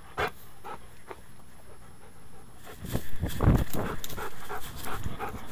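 Labrador panting, heard up close, in quick even breaths. About three seconds in there is a louder stretch of low bumping and rustling, and the panting then runs faster.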